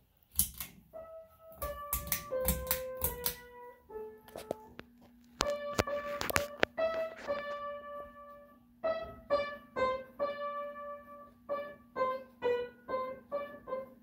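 Electronic keyboard playing single notes one after another in short melodic phrases, each note struck and fading. A faint steady low hum runs under the notes from about four seconds in.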